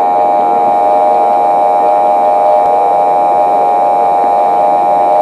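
A steady electronic drone of several held tones over static hiss, loud and unchanging, used as a stand-by tone in a mock Emergency Alert System broadcast.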